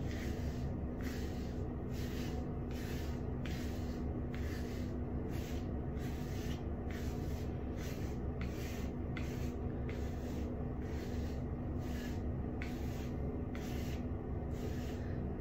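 A brush raking through short, pomaded hair close to the microphone in steady strokes, roughly two a second, over a low hum.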